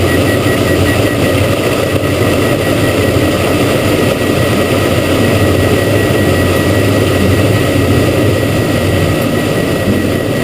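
Cabin noise of a Diamond DA42 twin-engine propeller aircraft in cruise: a loud, steady drone of both engines and propellers, with a thin steady whine on top.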